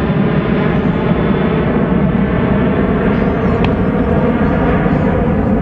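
Boeing 767-300's twin jet engines at takeoff power as the airliner climbs out: a loud, steady rumble with a layer of steady whining tones.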